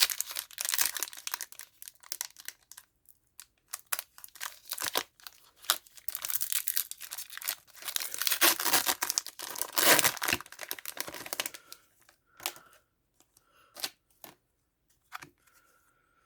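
Wrapper of a My Little Pony trading-card booster pack torn open and crinkled by hand, a dense crackling for most of the stretch. It gives way to a few short handling clicks near the end.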